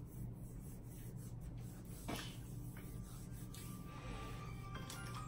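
Quiet room with a steady low hum, faint rustling and handling, and a single knock about two seconds in.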